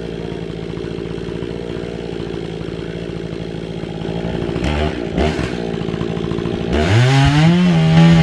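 Two-stroke gas chainsaw idling steadily, with a brief blip about five seconds in. Near the end it is throttled up, its pitch rising quickly and holding at full speed.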